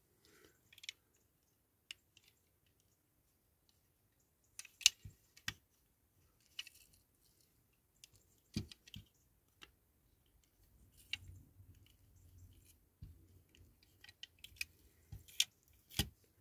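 Scattered small clicks and taps of a diecast toy model and its small parts being handled and fitted together by hand, with a soft handling rustle in the middle stretch.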